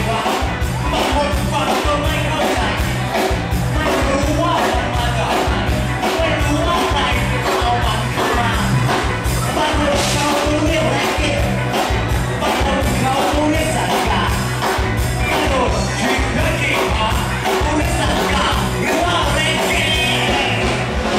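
Song with a sung vocal over a steady, regular beat.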